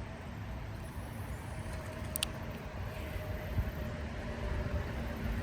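Steady low rumble of road traffic, with a faint steady hum running through it.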